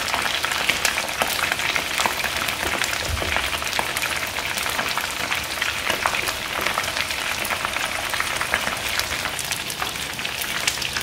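Flour-battered chicken wings frying in shallow hot oil in a pan, golden-brown and close to done: a steady sizzle dotted with many small crackling pops.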